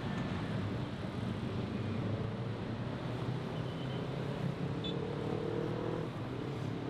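Dense city road traffic: a steady hum of engines and tyres. In the second half one vehicle's engine stands out, rising slightly in pitch as it pulls away, and a brief high chirp sounds about five seconds in.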